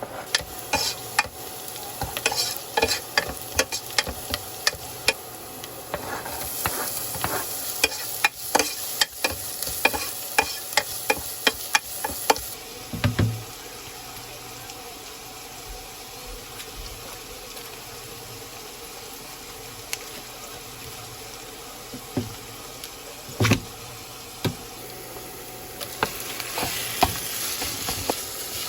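Cooking in a pan: a utensil clicking and scraping against it in quick strokes over the first twelve seconds, with a sizzling hiss that comes and goes, and a few single knocks later.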